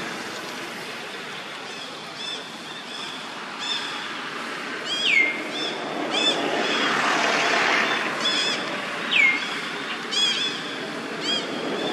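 High-pitched animal calls: short chirps repeated at irregular intervals from about two seconds in, and two quick whistles that slide downward, about four seconds apart. Under them is a steady outdoor hiss that swells briefly around the middle.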